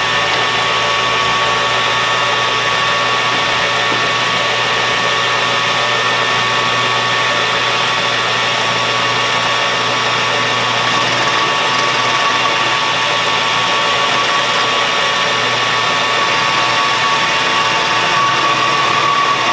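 Small hobby metal lathe running steadily at about 1000 rpm, a constant motor and gear whine with a steady high tone, while the tool takes a facing cut across the end of a steel bar.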